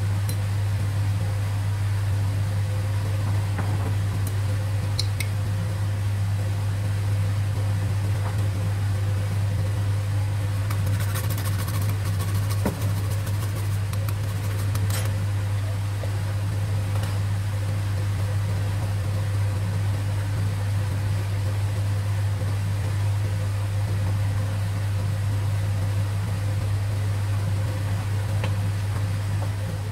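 Steady low motor hum throughout, with a few faint light clicks and scrapes about eleven to fifteen seconds in.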